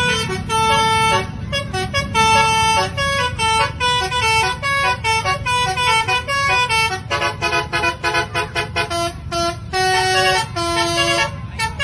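A bus's basuri (telolet) multi-tone air horn playing a fast melody of short notes, the tune switching to a lower-pitched pattern about seven seconds in, over a steady low rumble.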